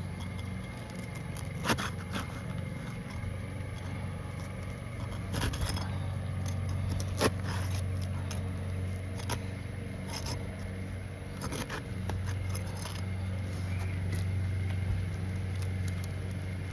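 Old, brittle asphalt shingles being pried up, with scattered scrapes and sharp cracking clicks as the shingles tear. A steady low hum runs underneath.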